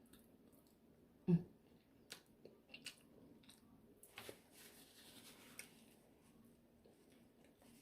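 Eating sounds at a mukbang table: quiet chewing and small clicks from handling seafood-boil food, with one louder thump about a second in.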